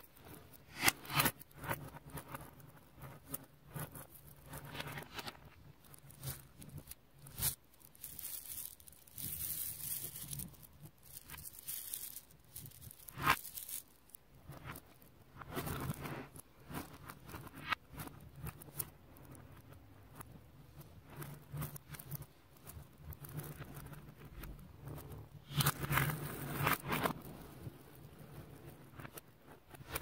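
Hundreds of small neodymium ball magnets clicking and crackling against one another in irregular bursts as a flat sheet of them is peeled up, rolled over and pressed back down.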